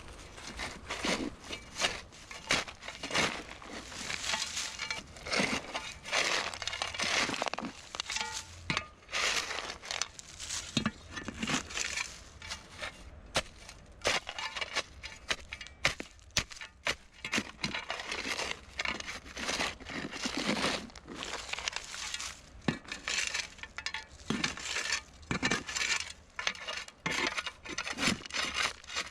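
Digging into the ground to unearth a buried plastic polytank: irregular crunching and scraping strokes into soil, a few every second.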